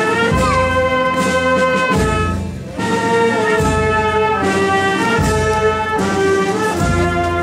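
Brass band playing slow, held chords over a regular low bass beat.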